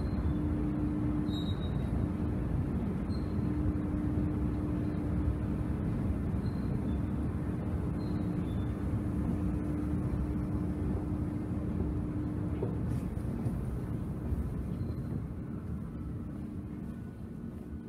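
Steady low rumble and hum of an underground railway station, easing off over the last few seconds.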